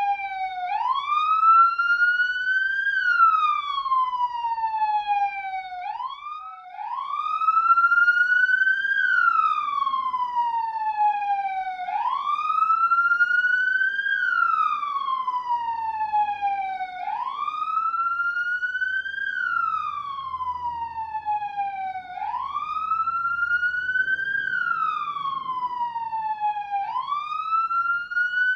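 Police car siren on its wail setting, sweeping up in pitch and sliding back down, about once every five seconds.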